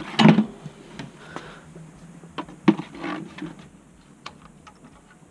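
Tools and parts being handled while working under a car: a loud knock just after the start, then scattered clicks and knocks, the sharpest about two and a half seconds in.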